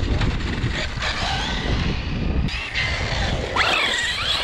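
Large radio-controlled car driving past on asphalt: its electric motor whines and rises sharply in pitch about three and a half seconds in as it accelerates, over a steady rumble of tyres and air close to the ground-level microphone.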